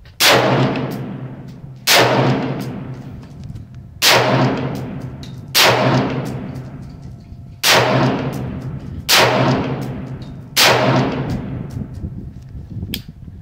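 Seven unsuppressed shots from an AR-15 rifle with a 16-inch Colt pencil barrel and A2 flash hider, firing steel-case 55-grain .223 Remington, spaced about one every one and a half to two seconds. Each loud crack trails off in echo for over a second.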